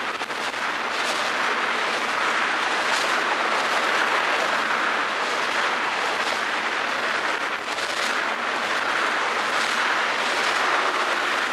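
Freight train of steel tank cars rolling past close by: a steady rumble and hiss of wheels on rail, with a few sharper clacks from wheels crossing rail joints.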